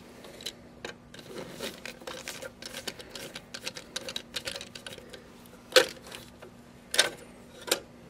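Small scattered clicks and scrapes of a tiny screwdriver working the screw that holds the finger guard inside the Macap M4 grinder's doser chamber, with three sharper clicks in the last few seconds.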